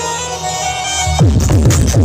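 Loud electronic dance music from a sound-system battle mix: held synth chords, then about a second in a rapid series of falling bass sweeps.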